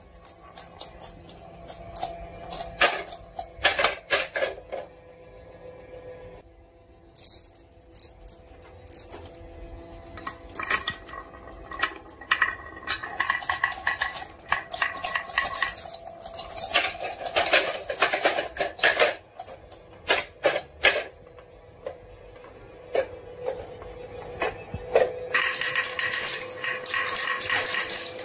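Marbles rolling and clacking down a wooden marble run and toy vehicles: a steady rolling hum broken by many quick clicks and knocks, with a quieter stretch early on and a dense burst of clatter near the end.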